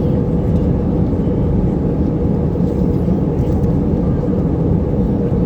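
Steady, loud low rumble of an Airbus A320's passenger cabin in flight: engine and airflow noise with a faint steady hum.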